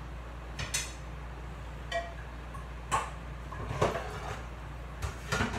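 Dishes and kitchenware being handled: a handful of irregular clinks and knocks, some with a short ring, about a second apart.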